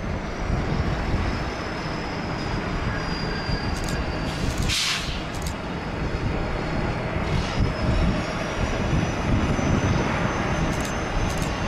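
Airbus A330 jet engines on landing: a steady rumble and rush as the airliner flares and touches down, with a faint high engine whine slowly falling in pitch.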